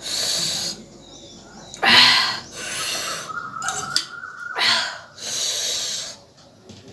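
A person taking a string of loud, hissing breaths in and out through the mouth against the burn of green chillies.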